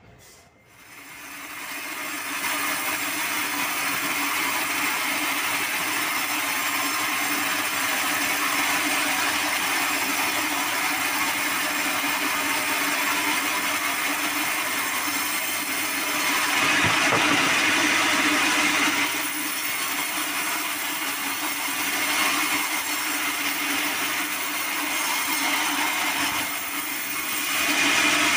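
Band sawmill cutting lengthwise through an acacia log: a steady hum of the blade and drive under the dense hiss of the blade in the wood. It builds up over the first two seconds and is loudest about halfway through.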